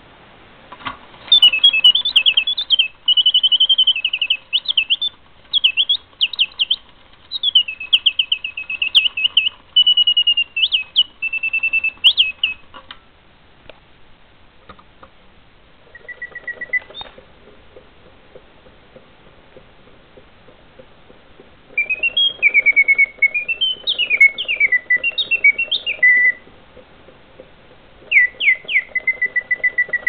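Clockwork singing-bird automata whistling bird song: first a singing-bird box, then a caged singing bird. The song comes in fast warbling phrases of chirps and quick rising and falling glides, with a long run of song in the first half. After a lull come shorter phrases separated by pauses, with a faint whirr of the clockwork under the later song.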